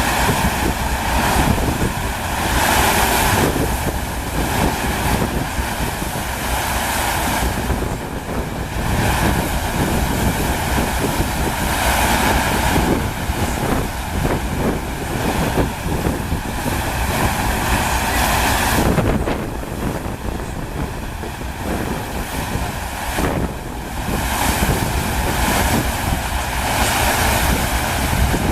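Steady rushing of water sheeting over the FlowRider surf simulator's wave surface, swelling and easing, with wind buffeting the microphone.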